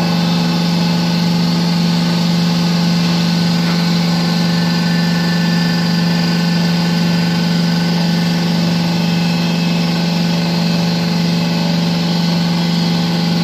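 Electric power tool motor running at a steady speed with a strong, even hum, then cutting off abruptly at the very end.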